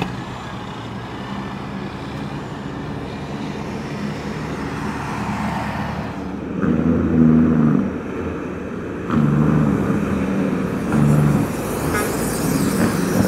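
Heavy diesel truck engines running, with two louder swells in the second half.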